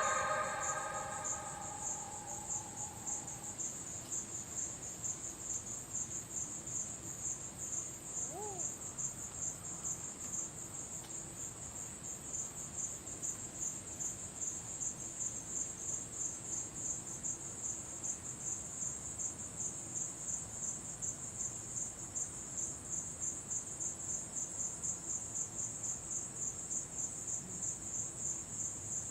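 Crickets trilling steadily in a continuous, rapidly pulsing high-pitched chirr. Music fades out at the start, and a single faint short chirp comes about eight seconds in.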